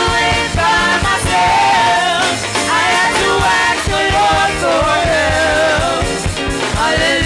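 Live gospel praise-and-worship music: a church band with a drum kit plays a steady beat while voices sing a melody over it.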